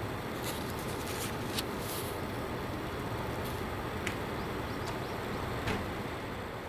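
Steady outdoor background noise, like a distant traffic hum, with a few faint clicks and taps as a handmade booklet is handled and closed.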